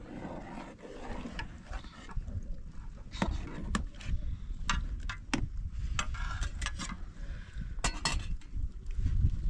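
Metal spoons clicking and scraping against a metal frying pan of curd, a handful of sharp clinks spread through, over a steady low rumble.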